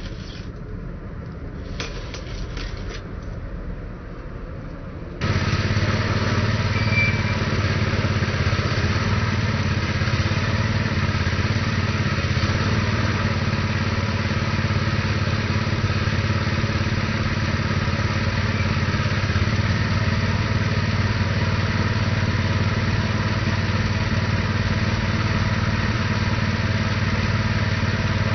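Predator 212cc single-cylinder four-stroke engine on a cable tool drill rig being pull-started, catching suddenly about five seconds in and then running steadily.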